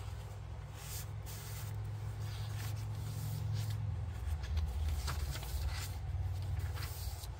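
Paper rustling and sliding as handmade journal pages, tags and an envelope are handled and the pages turned, in short scratchy strokes. A low rumble runs beneath them and grows louder in the middle.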